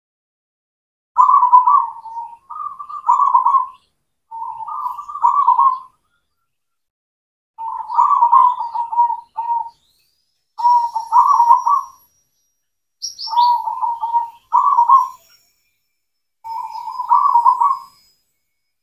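Zebra dove (perkutut) singing: about eight short phrases of rapid, pulsing coos, each a second or so long, with brief pauses between them. A few faint high, thin chirps come in partway through.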